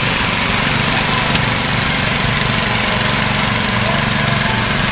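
A small engine running steadily close by, its low hum pulsing evenly, as the lit parade float drives past; one sharp click a little over a second in.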